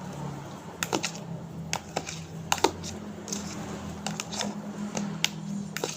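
A spoon clicking and tapping irregularly against a container while stirring clay, water and soap into slime, over a low steady hum.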